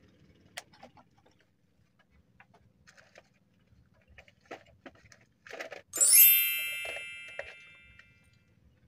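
A small metal bell, the bite-alarm bell on a bottom-fishing rod, rings out once about six seconds in and fades over about two seconds: the sign of a fish tugging at the line. Before it come a few light clicks and taps.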